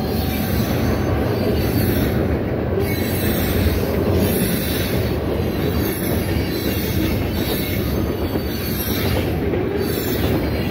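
Freight train of covered hoppers and tank cars rolling past close by: a steady, loud rumble and rattle of steel wheels on the rails.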